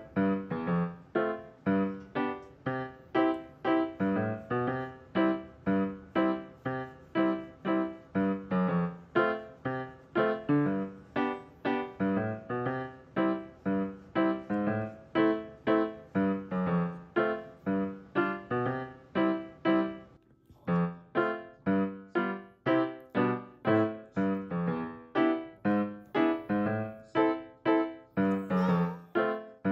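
Background music: a light keyboard tune in evenly paced notes, with a short break about twenty seconds in.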